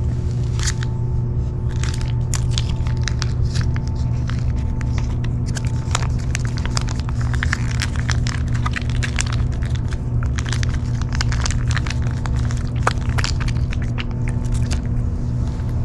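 A cat eating wet food from a paper bowl: rapid, irregular wet clicks and smacks of chewing and licking, starting about half a second in. A steady low hum runs underneath.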